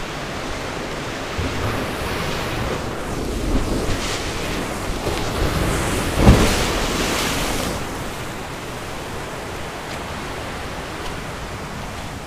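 Sea surf washing on the shore with some wind on the microphone: a wash that swells over several seconds, is loudest about six seconds in, then eases off.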